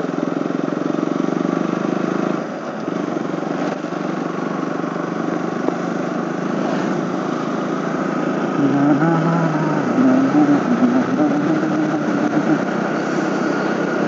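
KTM RC 200's single-cylinder engine running under way, heard with wind noise over the helmet-mounted microphone. The engine note rises and falls a few times in the second half.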